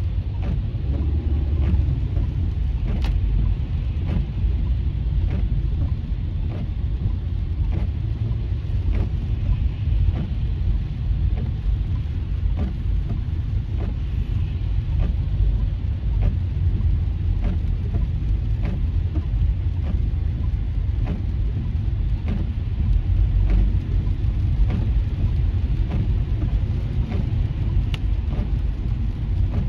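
Steady low rumble of a car driving on a rain-soaked freeway, heard inside the cabin: tyres on wet pavement and the engine, with faint, evenly spaced ticks about one and a half times a second.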